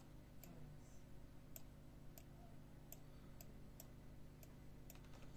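Faint computer mouse clicks, about ten, spaced unevenly roughly half a second to a second apart, over a faint steady low hum.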